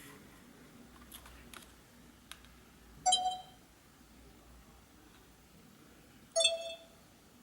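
Sony HDR-CX450 camcorder's confirmation beep sounding twice, about three seconds apart, as its first-time setup menu is worked. A few faint ticks come shortly before the first beep.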